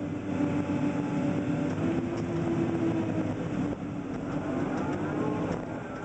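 Komatsu PC300 excavator's six-cylinder diesel engine running under load while the machine swings, heard from inside the cab; its tone shifts a little in pitch, with a rising whine about five seconds in.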